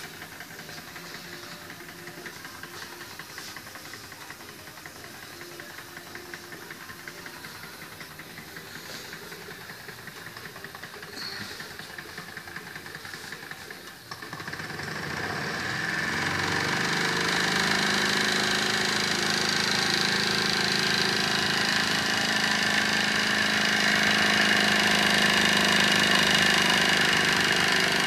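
Wilesco D18 model steam engine: a quiet rapid ticking at first, then about halfway through it is started and speeds up with a rising pitch. It then runs steadily and much louder.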